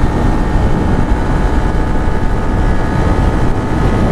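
Twin-cylinder motorcycle running steadily at highway speed, its engine hum under a heavy rush of wind noise on the microphone.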